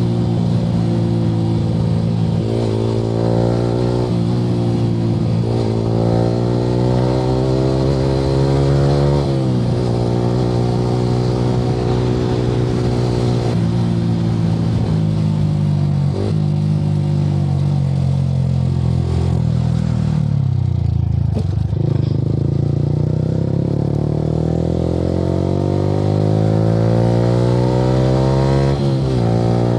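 Yamaha R15 V3's 155 cc single-cylinder engine through an Akrapovic R9 aftermarket exhaust, pulling hard through the gears on the move. The pitch climbs and drops back at each upshift several times, then makes one long climb over the last several seconds.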